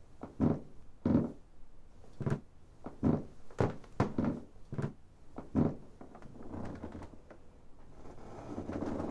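Footsteps thudding on an indoor floor as a person moves down a hallway: about nine heavy, unevenly spaced steps, followed by a softer, more even shuffling noise near the end.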